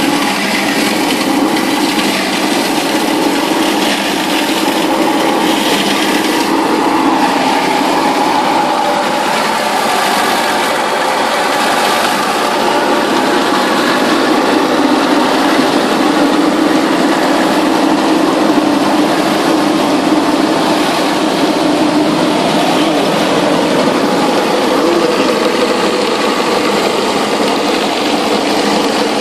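Kreuzmayr KEP 650 fruit de-stoning/passing machine running steadily while processing blueberries: a continuous mechanical hum from its 4 kW electric drive, elevator conveyor and passing rotor, with no change in load.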